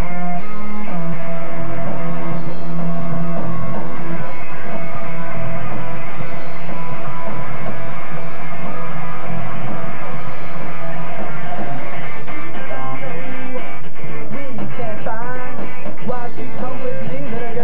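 Live rock trio playing loud: electric guitar, bass guitar and drums.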